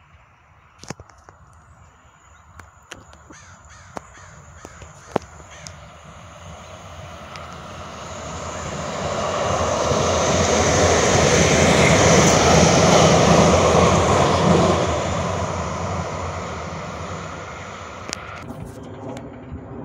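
A passing vehicle's rushing noise, swelling over several seconds to a peak about halfway through, then fading away. A few sharp clicks come before it.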